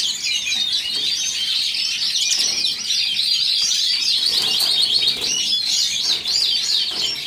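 Several caged canaries singing and chirping together: a continuous, busy chorus of quick high warbles and trills that overlap without a break.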